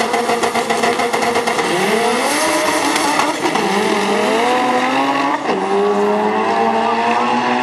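Two turbocharged Honda drag cars accelerating flat out down the strip. The engine pitch climbs and drops sharply at each of three upshifts.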